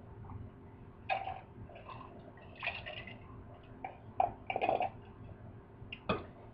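A person drinking from a stemmed glass: several short sips and gulping swallows over a few seconds, then a short sharp knock near the end.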